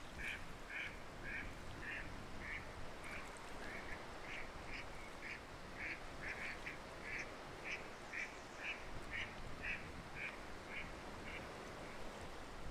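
Waterfowl calling: a steady series of short, high calls, about two to three a second, that stops shortly before the end.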